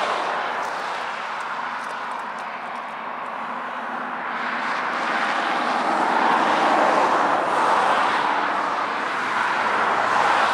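Distant running of an approaching train's GE diesel locomotives, led by a BNSF GE C44-9W. A steady rumble that swells and fades, loudest about six to eight seconds in.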